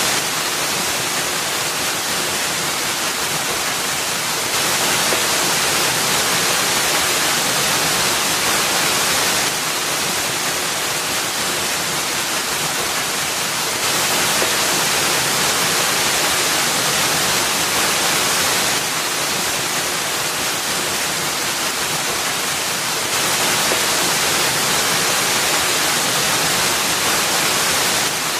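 Waterfall: water falling and splashing into a pool in a steady, bright, even rush. It grows slightly louder, then softer, in stretches of about five seconds.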